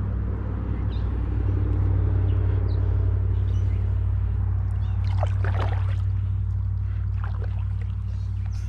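Small boat motor running steadily with a low hum, easing off slightly near the end, as the boat moves slowly across the lake.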